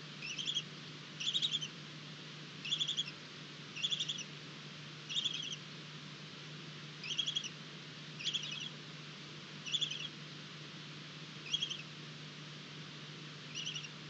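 Barn owl owlets calling in the nest box: about ten short, high, rattling calls, each a quick run of ticks, repeated every second or two over a steady low hum.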